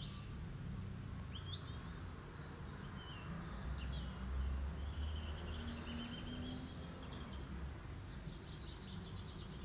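Small birds chirping faintly now and then over a low steady rumble, which swells a little midway.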